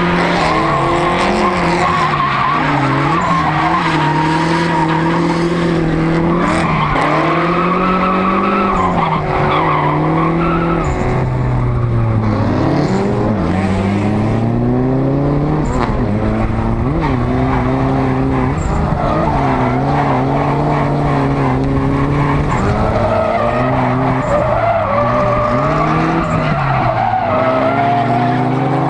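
Turbocharged Nissan KA24DET 2.4-litre four-cylinder engine heard from inside a drifting car's cabin, its revs repeatedly rising and falling under hard throttle, with tyres skidding.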